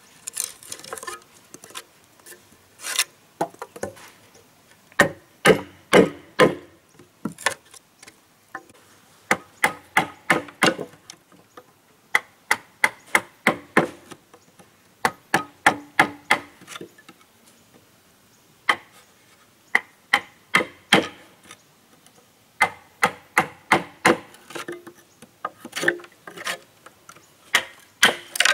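Blows of a hand tool on wood, coming in runs of quick strikes about two to three a second, with brief pauses between runs.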